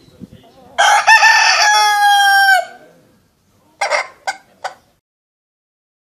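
Rooster crowing once, a loud call of about two seconds starting about a second in, followed by three short clucks.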